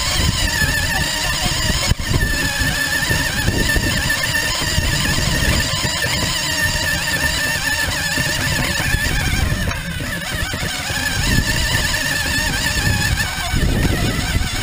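Radio-controlled car's motor whining high and wavering with the throttle, over a low rumble as it drives across bumpy grass, recorded by a camera mounted on the car.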